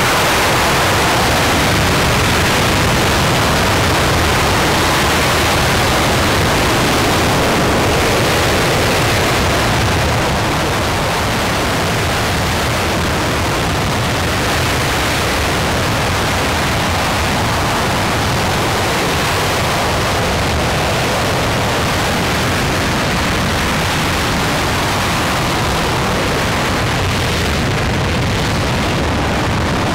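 RS-25 liquid-hydrogen/liquid-oxygen rocket engine firing in a static test, a steady, loud rushing noise with no pitch to it, easing slightly about ten seconds in.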